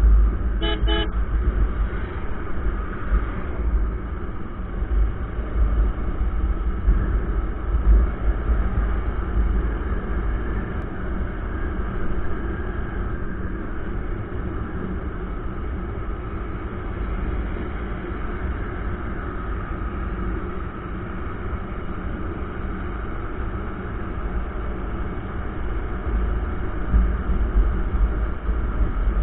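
Wind buffeting the microphone over a motorcycle's single-cylinder engine at a steady cruising speed, from the rider's Hero Honda CBZ. About a second in, a vehicle horn gives two short beeps.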